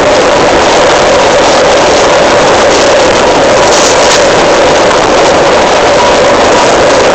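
Electric commuter train unit 1024 running with a loud, steady roar and a whine that creeps slightly upward in pitch.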